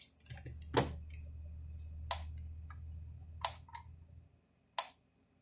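Gallagher M1500 fence energizer clicking with each output pulse: four sharp clicks, about one every 1.3 seconds, the steady pulse rate of a unit with healthy capacitors. A low hum runs under the first four seconds and then stops.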